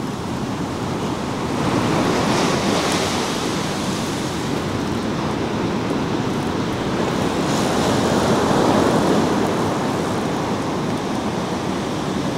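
Ocean surf breaking and washing up the sand, a steady rush that swells louder twice as waves come in, about two seconds in and again past the middle.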